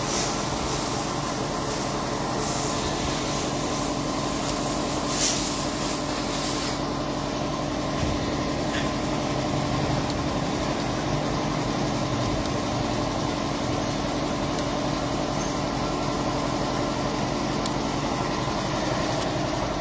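Car engine idling steadily in a repair shop. A high hiss lies over it at first and stops abruptly about seven seconds in.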